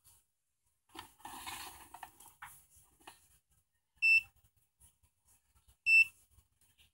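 Two short electronic beeps about two seconds apart, from a digital clamp meter being set up for a DC voltage measurement, after a second or so of rustling handling noise.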